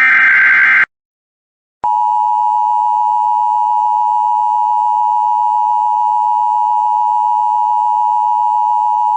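Emergency Alert System tones announcing a tornado warning. The last of the screeching SAME header data bursts cuts off near the start. After a second's pause, the steady two-tone EAS attention signal begins, about two seconds in, and holds.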